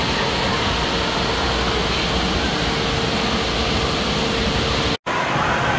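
Steady roar of indoor water park background noise, rushing water and air handling, with a faint steady hum under it. It drops out for an instant about five seconds in.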